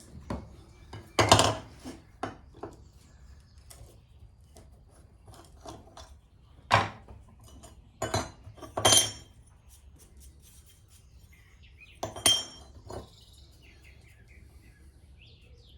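Steel plane iron and hand tools being handled on a workbench: scattered clinks and knocks at uneven intervals, several with a short metallic ring.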